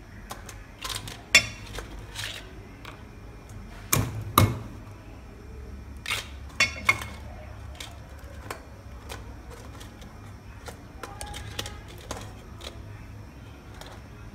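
Cleaver chopping raw crab on a wooden chopping board: scattered sharp knocks, the heaviest two about four seconds in, then lighter clicks and clatter of crab shell pieces being handled.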